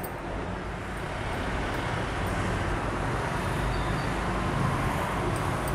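Steady rushing background noise that grows slightly louder over a few seconds, with no distinct events.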